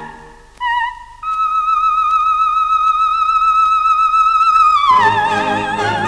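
Coloratura soprano singing an unaccompanied cadenza: a short note, then a long, very high note held dead steady without vibrato for about three and a half seconds. Near the end it slides down into a wavering note as the orchestra comes back in.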